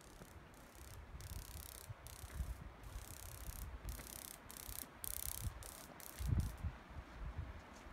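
Wind rumbling on the microphone outdoors, strongest about six seconds in, with a high hiss that starts and stops repeatedly.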